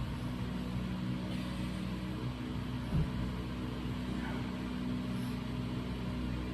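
A steady low mechanical hum with several held tones, and one short dull knock about three seconds in.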